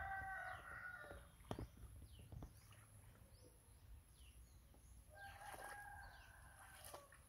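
A rooster crowing twice. One crow ends about a second in, and another starts about five seconds in and lasts nearly two seconds. A couple of sharp knocks fall in between.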